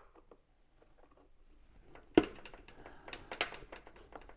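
Screwdriver turning screws out of a plastic headlamp housing, with small scratchy clicks, then a sharp knock about two seconds in followed by a scatter of light plastic clicks and rattles as the housing is handled.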